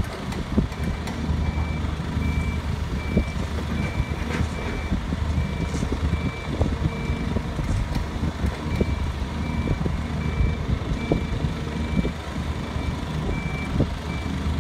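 Roadworks machinery: a warning beeper sounding in a regular beep about one and a half times a second over the low, steady rumble of a diesel engine, with scattered knocks and scrapes from the digging.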